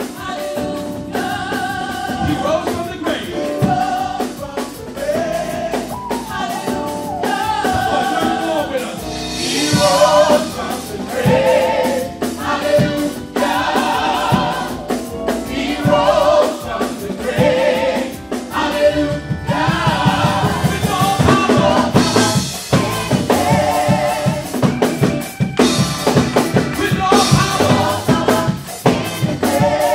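Live gospel vocal group singing: a male lead with a small choir of backing singers over a drum kit. The drumming gets busier about two-thirds of the way in.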